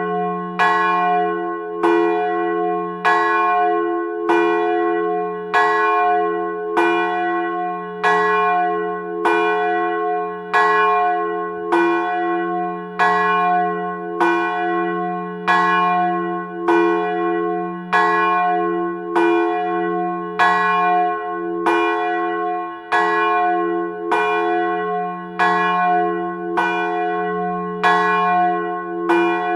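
Church bell tolling: one bell struck over and over at a steady pace, a little more than once a second. Each stroke rings on with a deep hum beneath it into the next.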